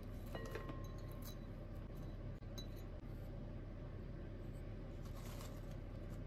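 A ceramic bowl clinks against the rim of a larger ceramic bowl and rings briefly about half a second in, as sliced onions are tipped in. Near the end comes a soft rustle of spinach leaves sliding into the bowl, over a steady low hum.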